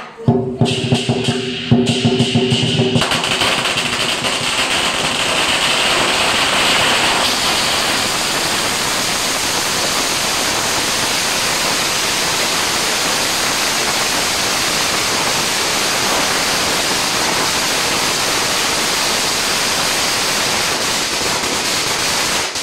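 A long string of Chinese firecrackers going off as one dense, continuous crackle of rapid bangs for nearly twenty seconds, starting about three seconds in and cutting off suddenly near the end. Before it, the lion dance drum and cymbals play briefly.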